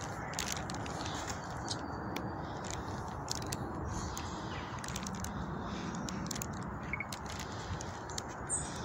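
Outdoor ambience on a walk: a steady low rushing hiss with scattered light clicks, and a faint bird chirp or two near the end.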